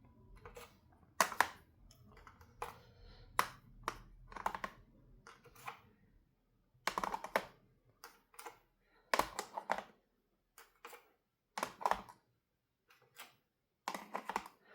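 Metal sockets and a plastic socket organizer tray being handled: a dozen or so irregular sharp clicks and clacks as sockets are set onto the tray's posts and knock together.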